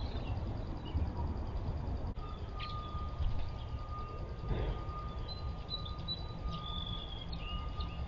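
Outdoor ambience of a low steady rumble with a few short bird chirps and calls, mostly in the second half. A steady high tone starts about two seconds in and holds.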